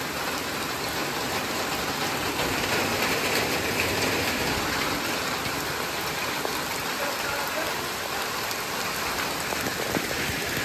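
Steady heavy rain falling on the open water of a stone-walled pool and on wet rock, an even hiss with no let-up.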